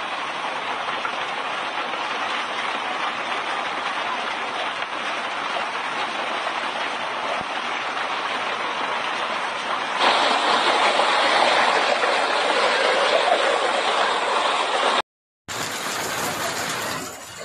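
Heavy hailstorm with hailstones and rain pelting down in a dense, steady hiss that grows louder about ten seconds in. The sound cuts out for a moment near the end and comes back a little different.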